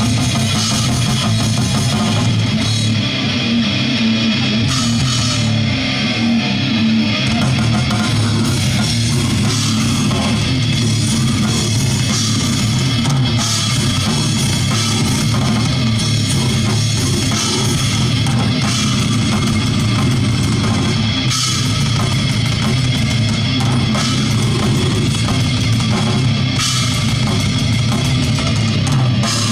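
Loud rock band playing heavy, metal-style music on electric guitar and drum kit, steady and unbroken.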